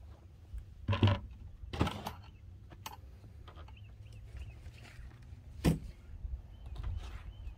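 Low wind rumble on the microphone, with three sharp knocks: two close together about a second in and one near six seconds. In the second half a bird repeats a short chirp two or three times a second.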